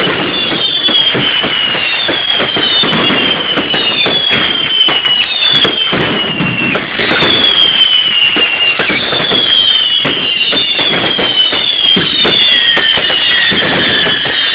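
Fireworks going off in a rapid string of whistling shots: overlapping high whistles, each falling in pitch over about a second, roughly one a second, over a continuous crackling.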